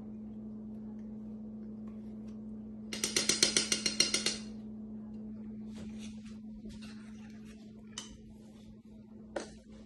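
A metal spoon rapped quickly against a metal saucepan, about ten sharp clinks in a second and a half around three seconds in. After that comes softer scraping and stirring of a thick mixture in the pot, with a couple of single clinks, over a steady low hum.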